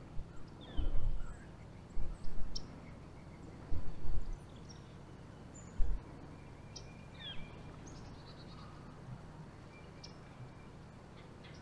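Birds chirping now and then with short, high calls that slide downward, over a steady outdoor background. Several dull low thumps come in the first six seconds and are the loudest sounds.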